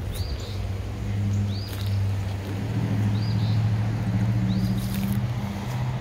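A low, steady engine hum swells over the first second or so and eases near the end. Over it a bird repeats a short high call about every second and a half.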